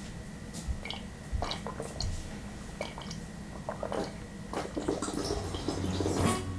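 Close-up eating sounds of cold kimchi noodle soup: wet slurps and sips of broth and squishy chewing, with small scattered clicks.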